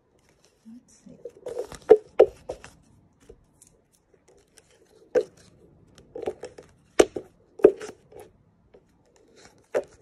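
Stiff cardboard scratch-off lottery tickets being handled and shuffled: short bursts of paper rustling with a few sharp taps, the loudest about seven seconds in.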